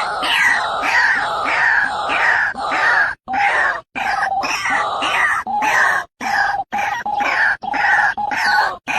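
White-breasted waterhen calling: harsh, repeated croaking notes, about two to three a second, each dropping in pitch, with a few brief breaks.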